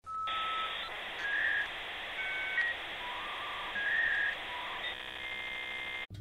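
Electronic channel-intro sound effect: a steady hiss with short whistle-like tones jumping between pitches, then a buzzy steady tone near the end that cuts off suddenly.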